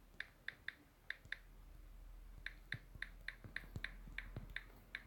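Key clicks from a phone's on-screen keyboard as a word is typed letter by letter: a run of short, faint clicks, about a dozen and a half, with a pause of about a second after the first few.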